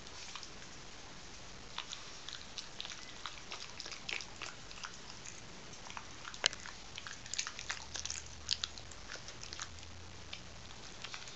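English bulldog puppy chewing and gnawing a bone: irregular short clicks and scrapes of teeth on the bone, with the loudest about six and a half seconds in.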